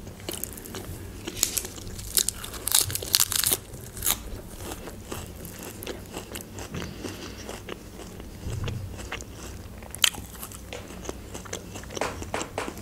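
Close-miked chewing of pide, Turkish flatbread with a minced-meat topping, the crisp crust crunching between the teeth. The crunches cluster from about one to four seconds in, with one sharp crunch near ten seconds.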